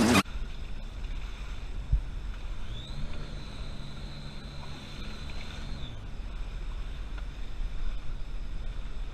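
Sea-Doo jet boat's engine running. Its pitch rises about three seconds in, holds for a few seconds, then drops back near the six-second mark as the throttle is eased off.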